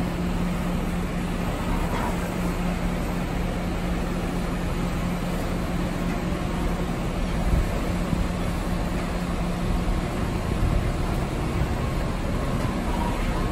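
Sternwheel steamboat's paddle wheel churning the river as the boat moves off, a steady rumbling wash with a low steady hum that fades about ten seconds in.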